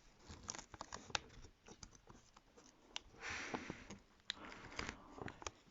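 Faint clicks and taps of small tablet parts being handled and prodded during a teardown. Two short scraping, rustling stretches come about three seconds in and again near the end.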